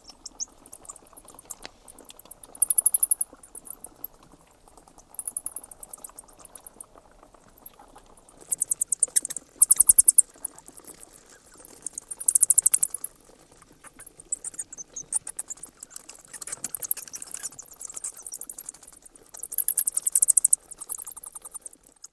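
Bats squeaking: bursts of rapid, very high-pitched chittering made of many quick clicks, recurring every second or two over a faint low background noise.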